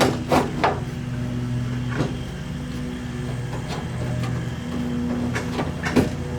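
Light knocks and clicks of metal parts being handled inside a pickup truck door: a quick cluster at the start, one about two seconds in and a few more near the end, over a steady low hum.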